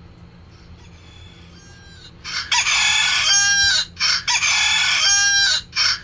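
Rooster-crow alarm sound played loud through a speaker. It starts about two seconds in, with repeated crows broken by short gaps.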